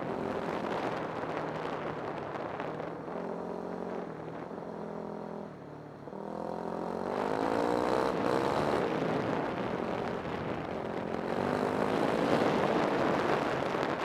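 Vehicle engine running under way over a rushing noise. Its revs ease off about five and a half seconds in, then climb again as it speeds up.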